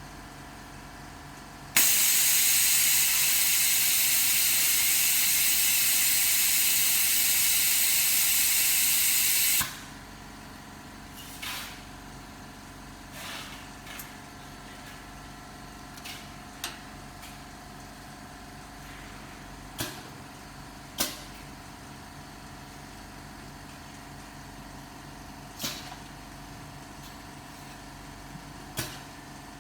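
Display repair machine humming steadily, with a loud blast of hissing compressed air for about eight seconds that cuts off sharply. After it come scattered single clicks and short puffs of air.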